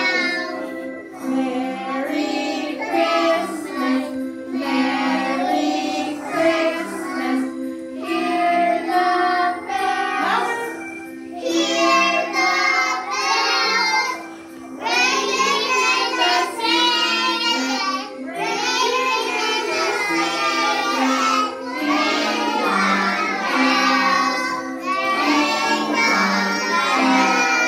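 A group of young children singing together in phrases with short breaks, over steady musical accompaniment.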